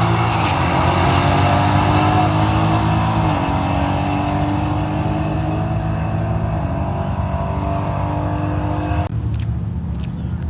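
A car engine under hard acceleration, its sound fading as it pulls away into the distance, with its pitch stepping at about three and seven seconds as it shifts gears. About nine seconds in, the sound changes suddenly, followed by a few clicks.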